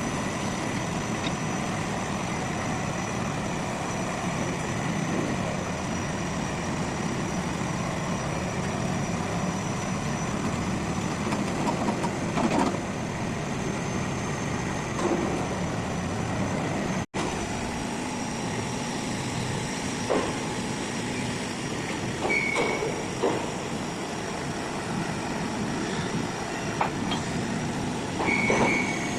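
RCF180C drilling rig running: steady engine and machine noise with a constant high whine, and several short metallic knocks in the second half. The sound cuts out for an instant about halfway through.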